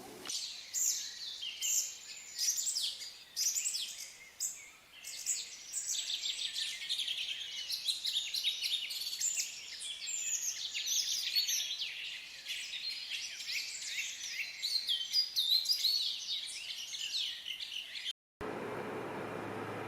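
Songbirds singing, many voices at once in a dense chorus of chirps and trills. It cuts off abruptly near the end, giving way to a steady hiss with a low hum.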